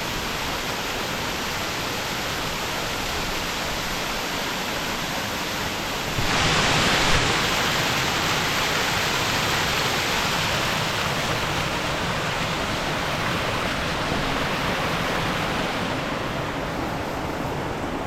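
A tall waterfall, about 80 feet, rushing steadily; it gets louder about six seconds in.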